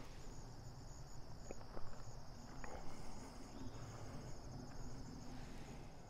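Faint steady high-pitched insect chorus, a rapid even pulsing trill, with a few soft clicks about two to three seconds in.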